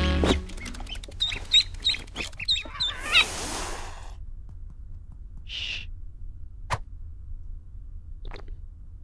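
Ducklings peeping: a quick run of short, high chirps in the first three seconds, then a few scattered soft noises and a single sharp click.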